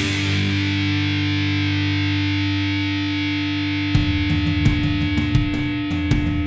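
Heavy metal music: a distorted electric guitar chord rings out for about four seconds, then drums come in with a fast beat under the guitar.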